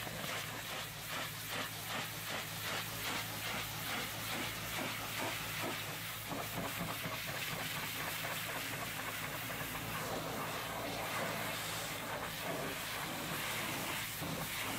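Hot-water pressure washer jet spraying against a minibus's metal side panels: a steady hiss of spray, with a steady low hum underneath.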